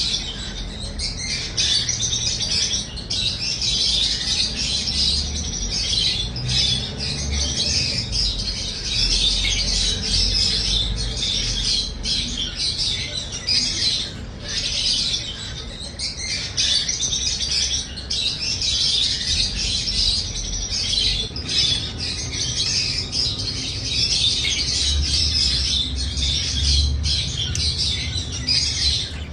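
Pet parrots chirping in a dense, continuous high-pitched chatter, broken only by a few brief pauses.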